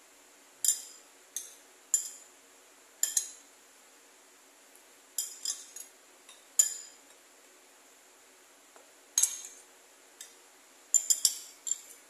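Metal spoon clinking and scraping against a bowl while gulaman jelly in milk is scooped up, in a dozen or so sharp, irregular clinks, several in quick succession near the end.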